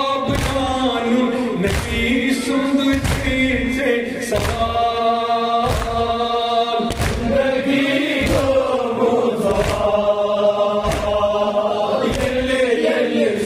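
A group of men chanting a Kashmiri noha (mourning lament) together, kept in time by rhythmic chest-beating (matam): sharp hand strikes on the chest about every two-thirds of a second.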